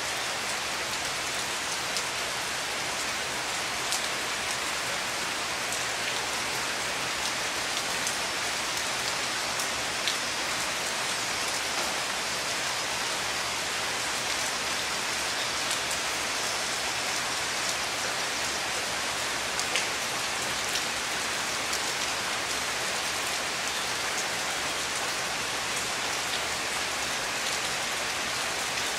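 Heavy tropical rain falling steadily onto standing water and foliage, a dense even hiss with a few sharper drop ticks now and then.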